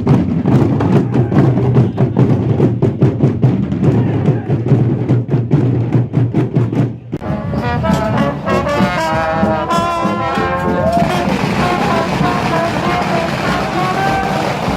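A marching band playing: rapid, dense drumming for the first half, then, after a sudden break, brass instruments sounding wavering notes over crowd noise.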